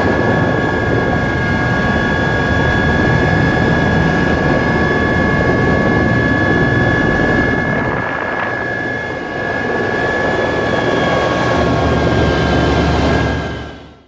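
Helicopter engine and rotor running, heard from inside the cabin: a steady high whine over a loud rushing rumble, fading out at the very end.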